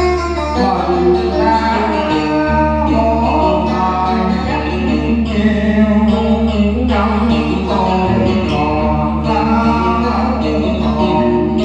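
Singing with vibrato over a steady backing track of a Vietnamese ballad.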